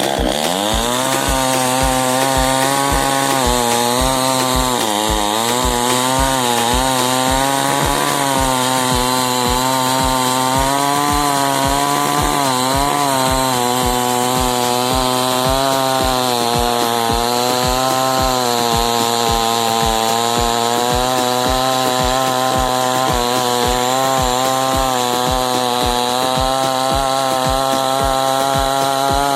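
A chainsaw running steadily under load, its engine pitch wavering slightly as it cuts, with a regular low pulse a little under twice a second.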